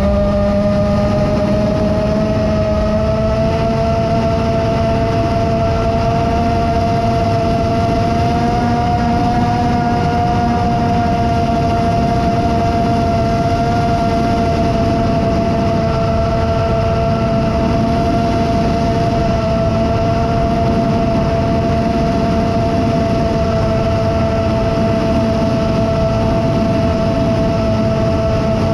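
Motors and 7-inch propellers of an iFlight Chimera 7 FPV quadcopter, recorded on its onboard GoPro, buzzing with a steady whine at cruising throttle, the pitch wavering only slightly, over a hiss of wind and air rush.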